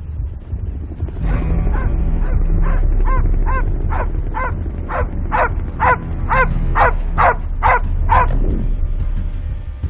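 A large dog barking repeatedly, about a dozen barks at roughly two a second, over a low steady rumble that starts about a second in.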